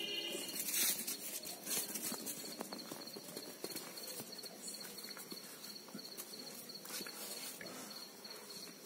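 Street puppies scuffling and play-fighting on a concrete floor: a run of soft scratches and clicks from paws and bodies, with a brief high whine at the very start.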